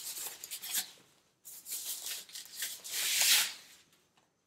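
A soundbar's protective bag rustling and crinkling as the soundbar is pulled out of it: short crackles at first, then a longer, louder swishing rustle about three seconds in that stops near the end.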